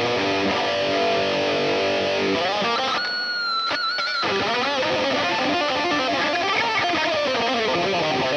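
Speed/death metal at 180 BPM: distorted electric guitars over programmed drums and bass. About three seconds in the band drops out for about a second, leaving one high held guitar note with vibrato. Then the full band comes back under a melodic line that bends up and down.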